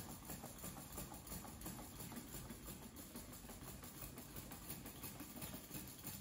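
Quadruped robot dog walking on a hard, smooth floor: a faint, rapid pattering of its feet tapping down.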